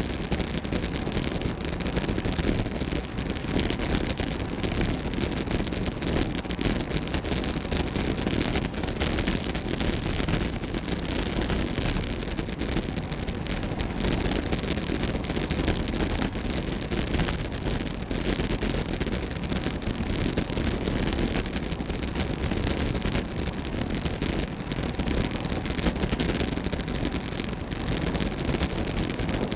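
Steady wind rush buffeting the microphone of a camera on a road bike moving at about 22 mph, with road noise from the tyres underneath, an even, unbroken noise throughout.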